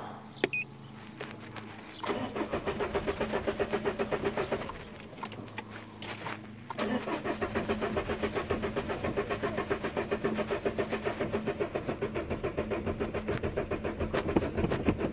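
Peugeot 406 2.0 HDi common-rail diesel being cranked on the starter in two tries, a short one and then a long one, with an even beat of about five compressions a second and no sign of it firing. The engine has a fuel-pressure fault in its high-pressure injection pump, the pump's pressure regulator valve.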